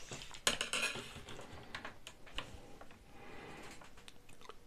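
Scattered light clicks and taps as a folding rule is laid along a plastic brick model, its segments knocking against the bricks and the desk. The clearest tap comes about half a second in.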